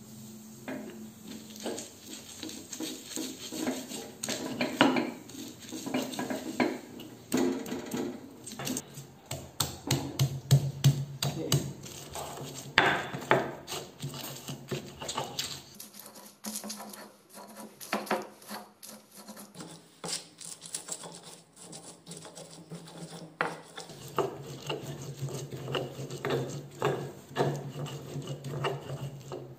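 Stone pestle crushing and grinding shallots, garlic, red chillies and salt in a stone mortar (cobek). The sound is a quick series of stone-on-stone knocks and scraping rubs as the ingredients are pounded into a paste.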